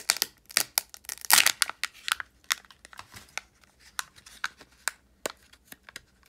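A plastic Kids Box surprise egg being opened by hand: its printed wrapper tears and crinkles as it is peeled off, among many small plastic clicks. The crinkling is loudest about a second and a half in.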